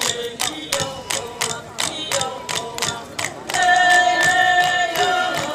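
Chanted singing over a steady beat of sharp clicks, about four a second; held sung notes come in about three and a half seconds in.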